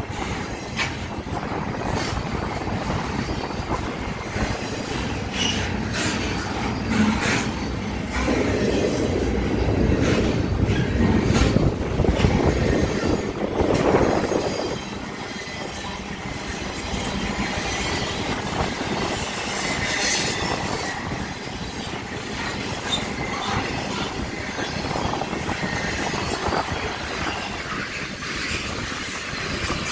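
Intermodal freight train's double-stack container cars and trailer flatcars rolling past close by: a steady rumble of steel wheels on rail with repeated clicks and clacks over the joints and some wheel squeal.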